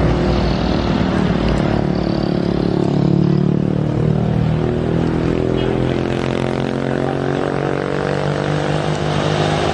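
A bus engine running steadily under load as the bus climbs the hill, with tyre and traffic noise; no telolet horn sounds.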